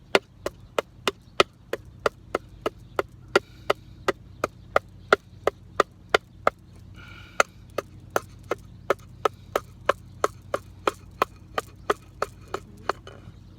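Knife being batoned through wood: a wooden baton strikes the knife spine in sharp, even knocks, about three a second.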